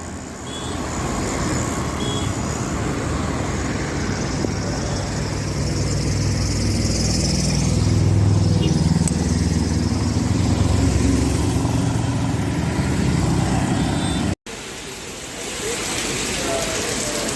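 Road traffic noise: motor vehicle engines and tyres, with a low engine rumble that grows louder toward the middle. The sound breaks off abruptly about 14 seconds in and resumes with a different texture.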